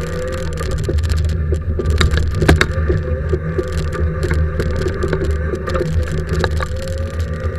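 Fiat Seicento rally car's engine running hard, heard from inside the stripped cabin. Sharp knocks and rattles from the car's shell come through now and then, the loudest about two and a half seconds in.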